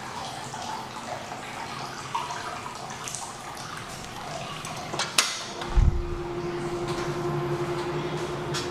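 Water trickling in a tiled indoor bath. About five seconds in, a door's lever latch clicks and the glass door swings open with a low thump, and a steady hum comes in from beyond it.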